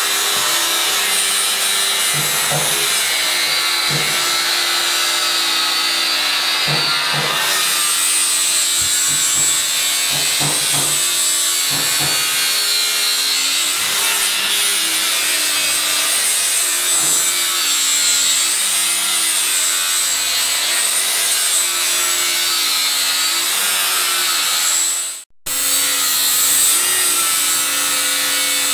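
Electric angle grinder grinding down weld seams on a narrowboat's steel cabin side and handrail: a steady, harsh grinding with the motor's whine wavering in pitch as the disc bears on the steel. The welds are being dressed flush so that no filler is needed. The sound drops out for a moment near the end, then carries on.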